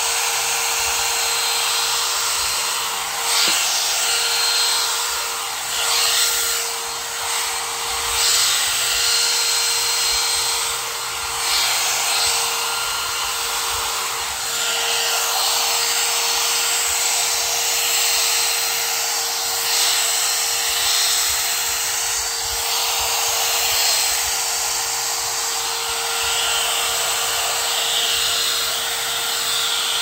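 A one-step hot-air brush (hair dryer and round brush in one) runs steadily, blowing air with a steady motor whine. Its sound swells and dips a little as it is drawn through the hair.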